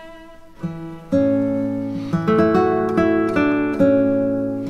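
Instrumental background music of plucked string notes that ring and fade, coming in about a second in with a run of single notes and chords.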